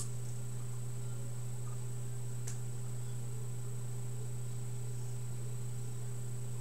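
Steady low electrical hum with a faint high-pitched whine over light hiss, and one faint tick about two and a half seconds in.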